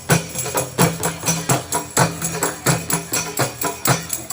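Qasidah music: rebana frame drums and tambourine jingles beating a steady, lively rhythm, with a sustained low drone underneath.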